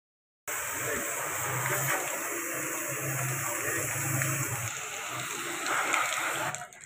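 Pressure-washer water jet spraying onto an air-conditioner outdoor unit, a steady hiss and splash that starts suddenly about half a second in. A low pump hum comes and goes under it until about two-thirds of the way through.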